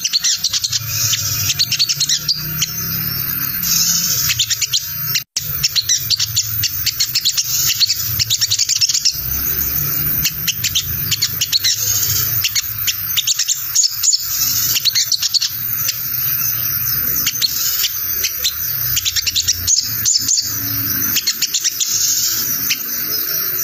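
Male olive-backed sunbird (sogon) giving its fast, continuous ngriwik chatter, a dense run of rapid high chirps over a low background hum, with a brief dropout about five seconds in. It is the call used as a lure, which other sogon answer.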